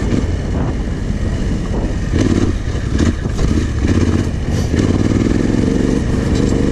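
Yamaha Ténéré 700's parallel-twin engine, fitted with an aftermarket exhaust, running as the bike rides a dirt track, the throttle opening and easing off several times. Wind buffets the camera microphone throughout, with scattered short knocks from the bike over the rough ground.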